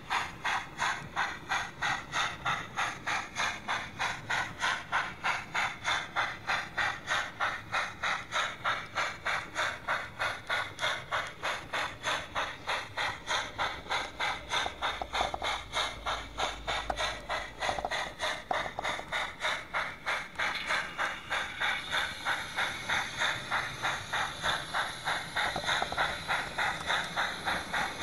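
00 gauge model train running along the track, with a steady mechanical clicking about three times a second over a light hiss.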